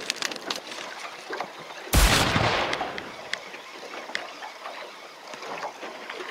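A single loud thump about two seconds in that dies away within a second, over scattered small clicks and the noise of a boat on the water.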